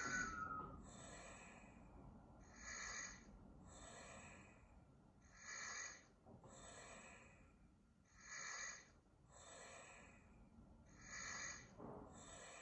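EMO desktop robot snoring through its small speaker: a soft, even in-and-out cycle that repeats about every three seconds, the out-breath the louder of the two.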